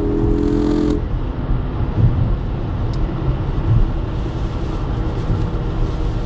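Ford Focus ST heard from inside the cabin on a wet road: the steady engine note drops away about a second in, leaving low road rumble and tyre noise. A single short tick comes about three seconds in.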